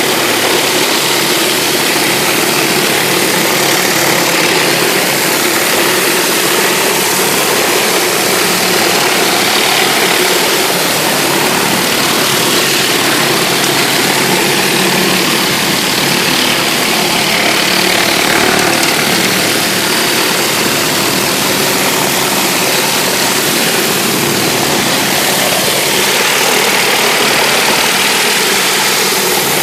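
Pressure washer's engine running steadily, with the loud hiss of high-pressure water spraying onto concrete.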